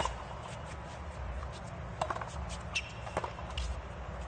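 Tennis ball struck by racket strings during a baseline rally: sharp hits near the start, about two seconds in and just after three seconds, over a low, steady stadium background.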